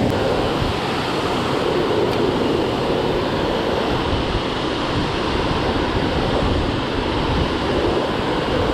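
Steady rush of river water pouring over a low dam and churning at its base.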